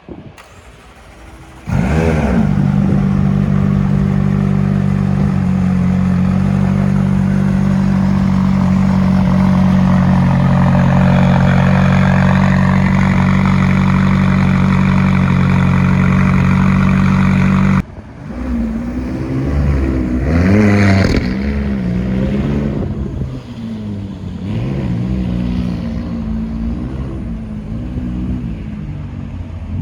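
McLaren 570S twin-turbo V8 engine. About two seconds in it comes in suddenly, loud and steady, and holds until it cuts off sharply just past the middle. After that the engine revs up and down repeatedly.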